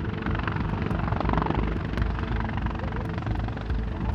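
Helicopter running close by, its rotor beating rapidly and steadily over the whine and rush of its engines.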